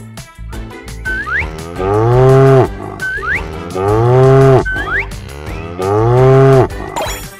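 A cow mooing three times, about two seconds apart, each moo a loud call under a second long that rises a little and falls away at the end.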